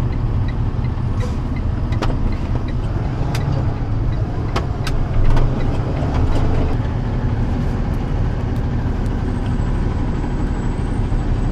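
Box truck on the move: a steady low engine and road rumble, with a few sharp knocks and rattles between about two and five seconds in. A faint, regular ticking runs through the first three seconds.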